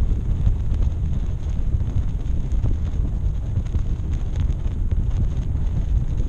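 Wind buffeting the microphone of a high-altitude balloon's onboard camera: a steady low rumble with faint scattered ticks.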